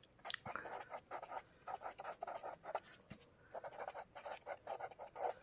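Pen writing on lined notebook paper: a run of short, irregular scratching strokes as a word heading is written out by hand, with a brief pause about three seconds in.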